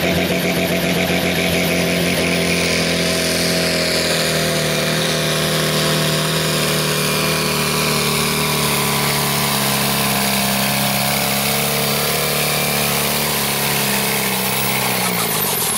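Diesel farm tractor engine running under full load while pulling a weight-transfer sled. It holds a steady pitch, then slowly bogs down over the last few seconds as the sled's weight builds, and drops off near the end.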